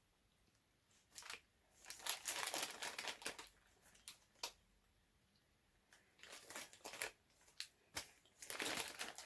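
Plastic candy packet crinkling as it is handled, in several short bursts with quiet gaps between.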